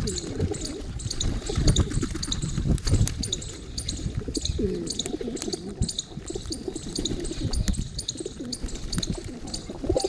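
A feeding flock of rock pigeons cooing over and over, with steady high-pitched chirping from other birds and occasional wing flutters.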